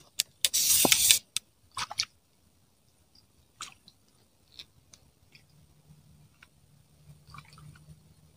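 Loud rustling and crunching close to a clip-on microphone for about the first second, with a short burst just before 2 s, then only a few faint clicks and ticks and a faint low hum that comes in about five seconds in.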